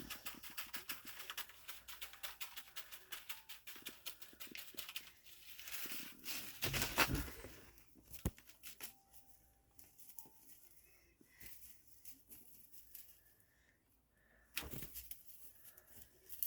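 Plastic bubble wrap crackling and rustling as a cat plays on it, with a dense run of small clicks for the first six seconds and a louder scrabble about seven seconds in. A single sharp click follows, and another short rustle comes near the end.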